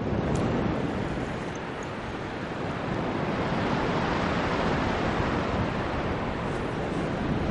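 Steady rush of airflow over the microphone of a camera mounted on a paraglider in flight, easing a little about two seconds in and then building again.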